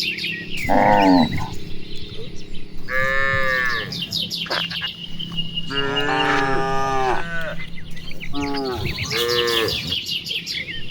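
Cattle mooing, several separate calls one after another from different animals in a grazing herd, one of them longer and drawn out about six seconds in.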